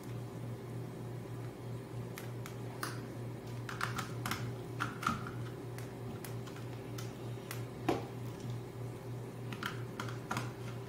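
Irregular light clicks and taps of a screwdriver and wire ends against the plastic terminals of a contactor as a wire is fastened, over a steady low hum.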